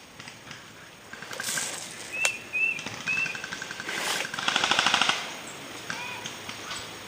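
Airsoft guns firing rapid full-auto bursts, three strings of quick evenly spaced shots, the last and loudest about four and a half seconds in.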